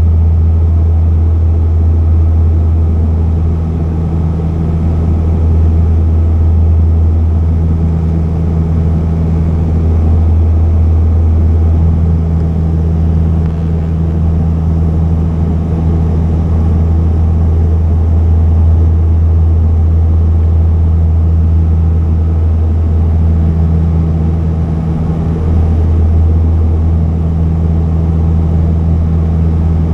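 Small propeller plane in flight heard from inside the cabin: a loud, steady, low engine-and-propeller drone, with a higher hum that fades in and out every few seconds.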